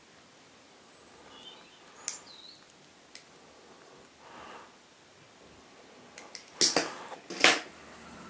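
Protective plastic film being peeled off a small brass spinner blade by fingers: faint ticks and crinkles, then two short, louder rustling crackles close together near the end.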